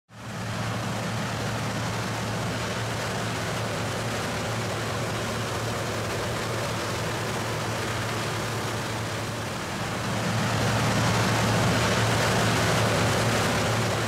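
Farm machinery running steadily: a low engine hum under a broad hiss. It grows louder about ten seconds in.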